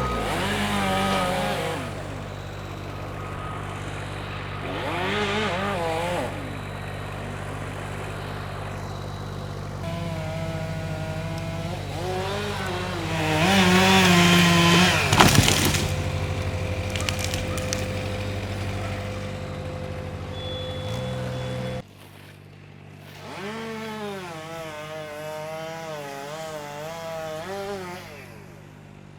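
Chainsaw revving up and down in several spells over an engine idling steadily; a sharp thump about fifteen seconds in.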